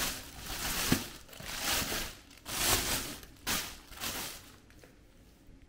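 Handling noise: about five bursts of rustling and crinkling, roughly one a second, as of packaging being moved, stopping about four and a half seconds in.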